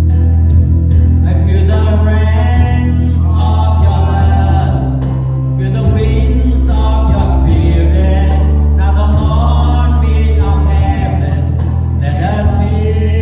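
Worship band playing a Christian praise song, with a group of voices singing phrases over heavy bass and regular drum and cymbal hits.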